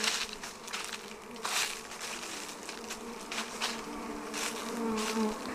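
Many honeybees buzzing close by, a steady drone that wavers slightly in pitch, with short rushes of noise every second or so as bees pass near.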